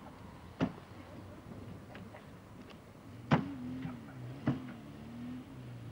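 Car doors on a small hatchback banging shut, three knocks with the loudest about three seconds in. After it comes a low, wavering engine hum as the car moves off.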